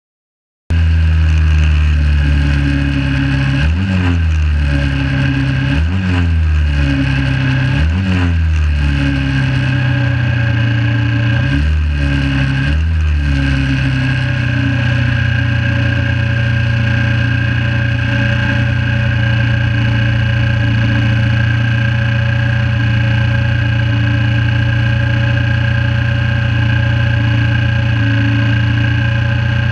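1968 Honda CB350 parallel-twin race bike idling on the starting grid. It is blipped up and back down five times in the first half, then holds a steady idle.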